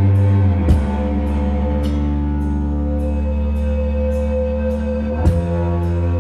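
Rock band playing live: slow, droning electric guitar and bass holding sustained chords over drums. The chords change with a drum hit about a second in and again near the end, and a light cymbal tick repeats about twice a second.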